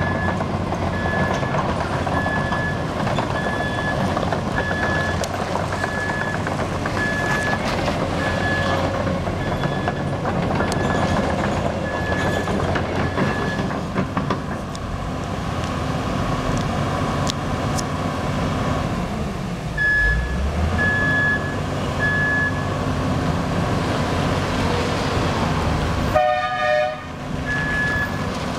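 Volvo 20-tonne excavator's diesel engine running under way, its travel alarm beeping regularly at about one beep every three-quarters of a second. The beeping stops about halfway through and comes back twice. A brief horn blast sounds near the end.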